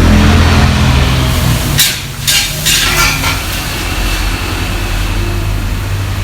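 Restaurant kitchen cooking: a steady low rumble that drops off about two seconds in, then a quick run of metal scrapes and clanks of a spatula against a wok or pan, followed by a steady hiss of cooking.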